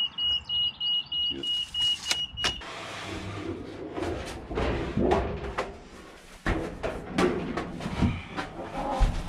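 A high electronic beeper pulsing about three or four times a second stops about two and a half seconds in. Then a thin painted metal roofing panel is handled and shifted on a sheet-metal machine: the sheet flexes and scrapes, with a few sharp knocks.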